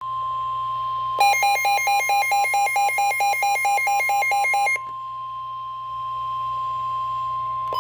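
NOAA Weather Radio warning alarm tone: a steady single tone near 1 kHz. From about a second in until nearly five seconds, a harsh electronic beeping alarm, alternating between two pitches about five times a second, sounds on top of it.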